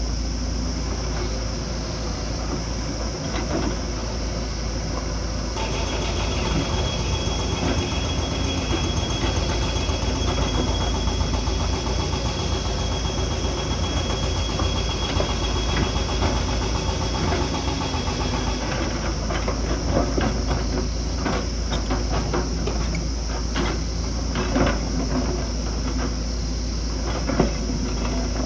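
Heavy earthmoving machinery running: a diesel engine drones steadily, a thin high whine is heard through the middle stretch, and irregular clanks and knocks crowd in over the last third.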